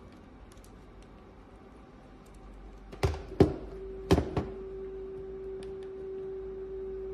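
Olympus OM-D E-M10 Mark III mirrorless camera: two pairs of sharp clicks about three and four seconds in, then a steady motor-like hum that keeps running. The hum is the abnormal noise the camera has made since it was dropped onto concrete, a sign of damage inside.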